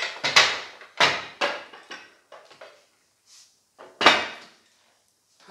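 PowerBlock adjustable dumbbells clunking as they are handled and set down at floor level: several sharp metal knocks with a short ring, the loudest right at the start and about four seconds in.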